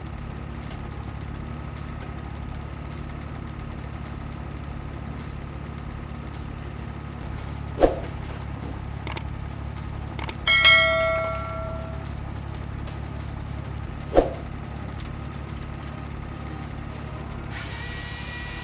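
Hydraulic log processor's engine running steadily, with two sharp knocks and, just past the middle, a ringing metal clang that dies away over about a second.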